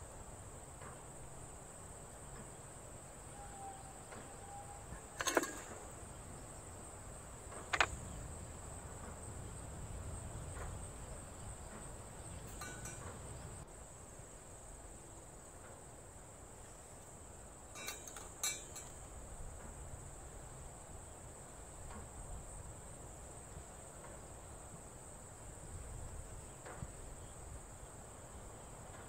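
A steady, high-pitched insect trill, cricket-like, runs without a break. A few sharp clicks and knocks stand out over it, two close together about eighteen seconds in.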